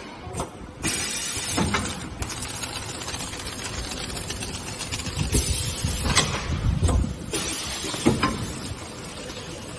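Bubble-film wrapping packaging machine running: steady mechanical noise with a faint hum and irregular clicks and knocks, with heavier low thumps around the middle.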